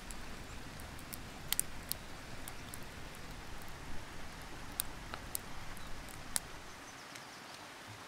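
Small campfire of dry sticks crackling, with scattered sharp pops over a steady soft hiss; the pops thin out near the end.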